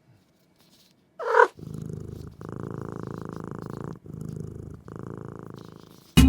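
Cat purring close to the microphone in steady pulsing cycles, broken by short pauses, after a brief call about a second in.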